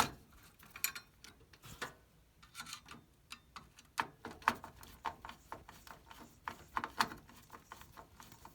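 Light, irregular clicks and taps of hand work on a desktop computer's CPU fan and its mounting screws, with a sharper click right at the start.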